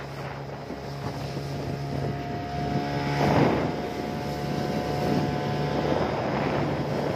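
Speedboat engine running steadily at speed, a constant low drone, under the rush of water and wind buffeting the microphone, with a louder rush about three seconds in.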